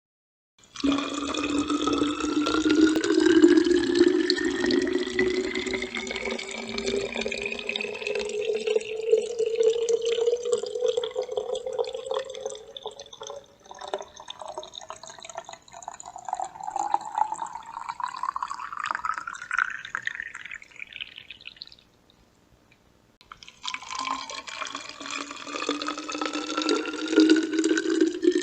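Water poured into a bottle, the ringing pitch of the bottle rising steadily as it fills. The pour stops about 22 seconds in, and a second pour starts a second and a half later, low again and climbing.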